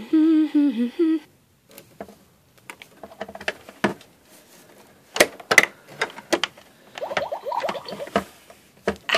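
A child's singing voice ends about a second in. Then come scattered clicks, knocks and rustles of plastic dolls and a dollhouse being handled close to the microphone.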